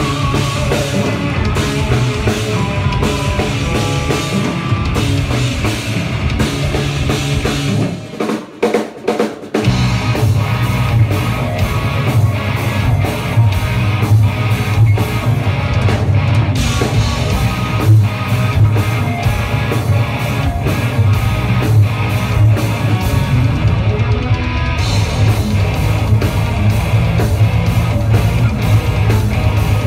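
Live rock band playing an aggressive song with guitar and drum kit. About eight seconds in, the band drops out for under two seconds to a few stop-start hits, then comes back in at full volume.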